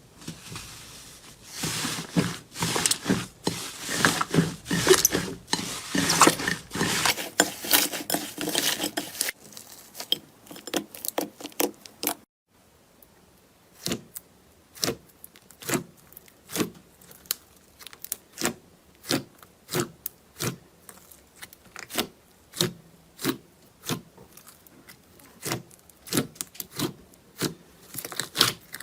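Close-miked ASMR crackling and crisp clicking from handled material. A dense run of crackles lasts about twelve seconds, then, after a short break, single clicks follow each other at about one and a half a second.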